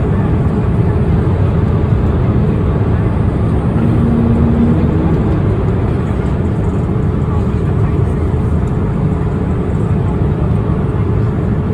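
Steady engine and airflow roar inside the cabin of a TUI Boeing 787 Dreamliner in flight, deep and even. A brief faint low tone sounds about four seconds in.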